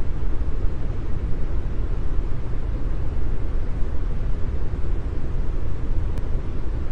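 Brown noise: a steady, even hiss with most of its weight in the deep low end, thinning out toward the highs.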